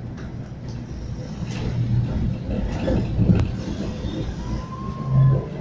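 Interior of a moving tram: a steady low rumble of the wheels running on the rails, with a sharp click about three seconds in and a thin whine for about a second near the end.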